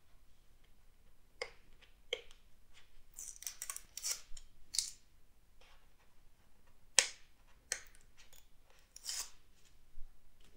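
Faint handling of a cardboard product box: fingers rubbing and scraping along its surface and edges as it is turned over, with scattered light clicks, the sharpest about seven seconds in.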